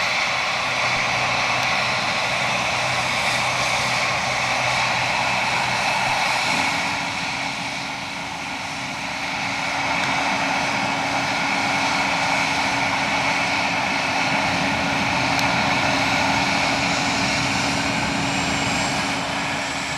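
Medical helicopter running on the ground as it gets ready to take off, a steady high whine over the engine and rotor. A low steady tone steps up to a higher pitch about six seconds in.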